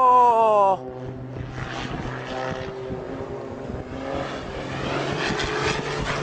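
Propeller aircraft engine passing close, its pitch falling, cut off abruptly within the first second; then a fainter, noisier engine drone that slowly grows louder.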